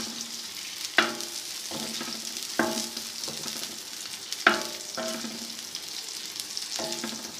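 Chopped onions sizzling in hot ghee and melted fat on a tawa while being stirred. A stirring utensil knocks against the pan four times, each knock ringing briefly.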